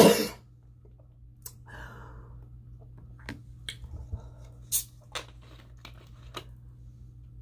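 A woman coughs once, hard, as food goes down the wrong way and catches her breath. After a few seconds come a scattering of small clicks and ticks as a plastic soda bottle is handled.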